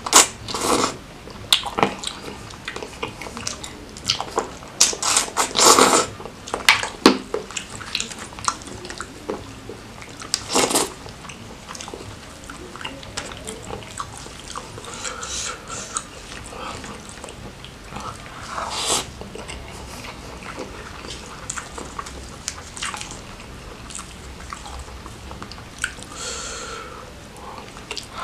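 Close-miked eating: biting and chewing crab meat coated in thick Padang sauce, with wet mouth sounds and sharp clicks, and a few louder bites spread through.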